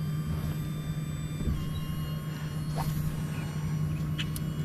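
A boat motor runs steadily with a low hum and a high whine. Its pitch drops slightly about a second and a half in, as the motor speed is eased off.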